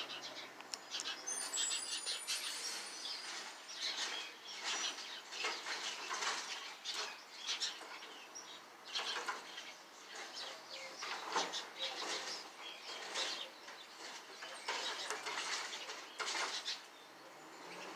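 Small birds chirping in quick, irregular bursts throughout.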